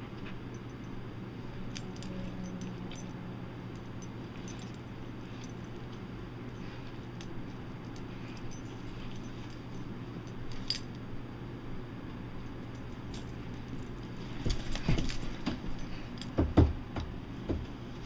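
Metal tags on a dog's collar jingling as a black Labrador plays, with scattered small clicks throughout. Near the end come scuffling and a few dull thumps, the loudest about two seconds before the close.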